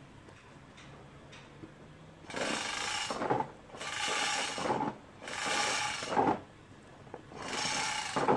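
Four rasping strokes of a hand tool working in the engine bay, each about a second long with short pauses between, ending with a short knock.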